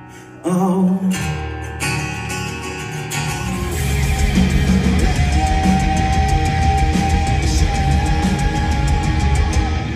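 A live rock band with electric guitars, bass guitar and drums plays in a concert hall. A voice sings a drawn-out 'oh' about half a second in, and the full band builds up and plays loud from about three and a half seconds. A long held note rings over the band near the end.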